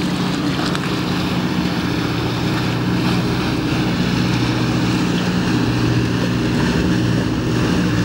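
A boat engine running steadily, a low even hum, with wind buffeting the microphone.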